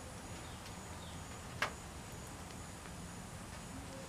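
Quiet outdoor background with faint short chirps, broken by one sharp click about a second and a half in.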